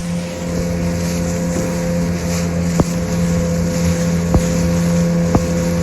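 Small motorboat's engine running steadily while under way, with wind and water noise over it and three short sharp knocks spread through the middle and end.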